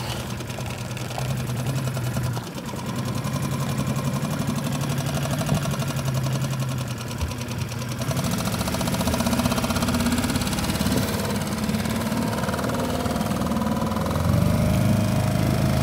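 Small 2.5-horsepower outboard motor running at low speed. It picks up about eight seconds in and gets louder again near the end as the boat gets under way.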